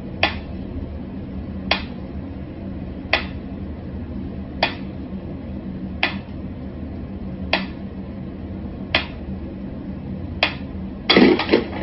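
Mechanical pendulum metronome ticking slowly and evenly, one sharp tick about every second and a half. Near the end, a brief louder cluster of knocks and clatter.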